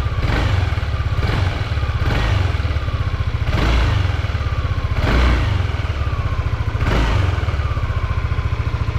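Yamaha NVX 155 scooter's single-cylinder four-stroke engine running and revved in about six short throttle blips, each rising and dropping back to idle. It runs well on a freshly fitted spark plug and plug cap, put in to cure hard starting and a ticking current leak.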